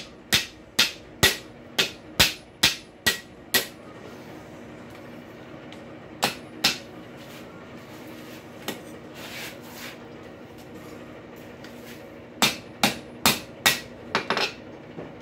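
Blacksmith's hand hammer striking a hot rail-spike hinge leaf on the anvil's step, rolling the hinge knuckle as the steel cools. About nine blows at roughly two a second, a pause with a few single blows, then a quicker run of six or seven near the end.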